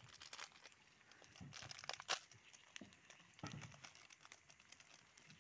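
Instant-coffee sachets being handled and torn open by hand: faint crinkling of the plastic packets, with scattered crackles and one sharper crackle about two seconds in.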